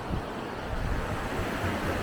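Ocean surf washing onto the beach, a steady rush that swells toward the end, with wind buffeting the microphone underneath.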